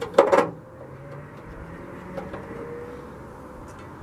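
A quick rattle of plastic clicks as a plastic slider is pushed up onto the metal edge of a Jeep hood, with one faint click about two seconds in.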